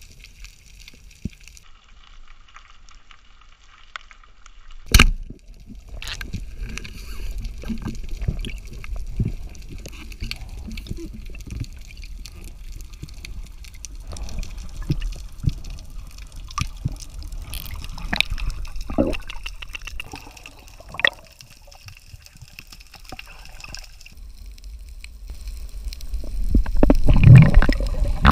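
Underwater sound of water and bubbling. About five seconds in comes one sharp, loud snap, the speargun firing, followed by scattered clicks and knocks as the shaft and line run out. The water noise swells into a loud low rush near the end.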